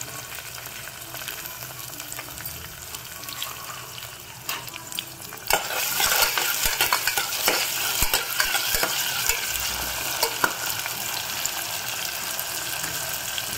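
Sliced onions with coriander and mint sizzling in hot oil in an aluminium pressure cooker. From about five and a half seconds in, a metal ladle stirs them, scraping and clicking against the pot, and the sizzle grows louder before settling to a steady hiss again.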